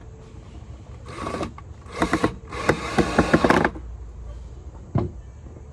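Screw gun driving a screw in three short bursts, the third and longest a little over a second, followed by a single sharp click near the end.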